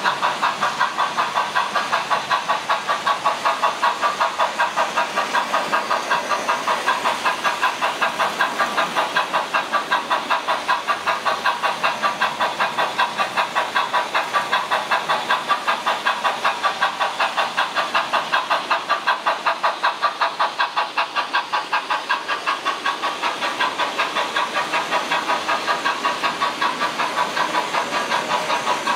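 Märklin digital model steam locomotive's sound decoder playing a steady, even chuffing rhythm of several beats a second as the model train runs along the track.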